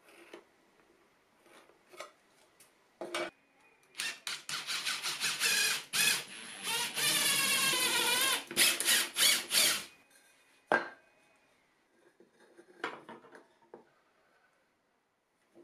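Green Bosch cordless drill drilling into a red cedar batten: several short trigger bursts, then a longer run with the motor's pitch wavering, stopping about ten seconds in. A few knocks of wood and tools being handled come before and after.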